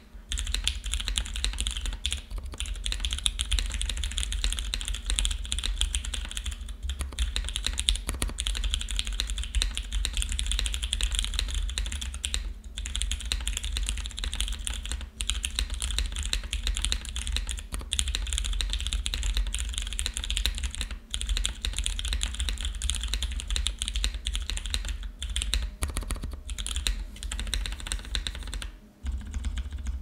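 Fast, continuous typing on a Kei R1 custom mechanical keyboard fitted with lubed, filmed Ergo Clear tactile switches on a polycarbonate plate. The keystrokes clack in a dense stream, with a few brief pauses, one near the end.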